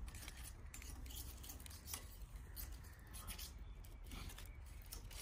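Faint, scattered small clicks and crackles from a kindling fire of dry twigs burning under lumps of charcoal, as charcoal pieces are set in place by hand.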